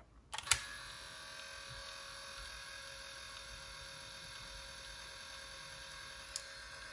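A button click about half a second in, then the Aiwa HS-J505 cassette walkman's motor and tape mechanism running with a steady whine.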